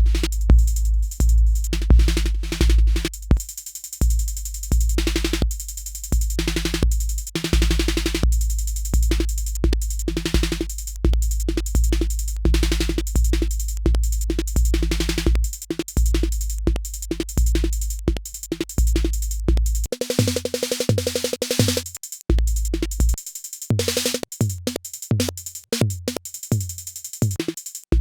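Eurorack modular synthesizer built around a Mutable Instruments Peaks module, playing a looping electronic drum pattern of deep bass kicks and noisy hi-hat-like hits. About two-thirds of the way through, the deep bass drops out and a pitched synth tone comes in over shorter kick thumps.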